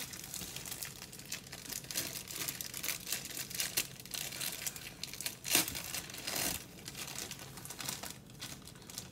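Crinkly packaging rustling and crackling as it is handled, with two louder crackles a little past the middle.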